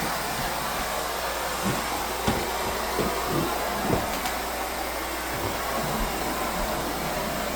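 Central vacuum cleaner running steadily: air rushing through the hose and floor head, with a few light knocks as the head bumps along the floor.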